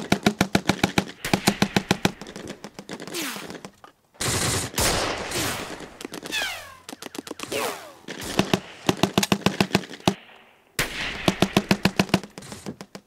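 Battle gunfire: machine-gun bursts of about ten rounds a second, in several strings separated by short gaps, with a longer noisy blast about four seconds in.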